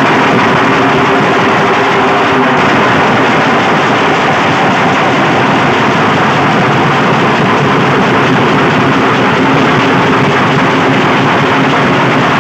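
A street dhol band of many large barrel drums beaten together. It is very loud and steady, with the strokes blurring into one dense wash of sound.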